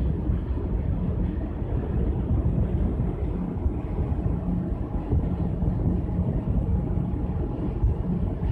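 Wind buffeting the microphone on the open top deck of a cruise ship under way: a steady low rumble that flickers in loudness.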